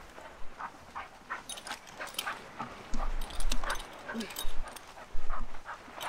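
Dogs on leashes whining and yipping excitedly, among a scatter of sharp clicks. Wind rumbles on the microphone twice, about halfway through and near the end.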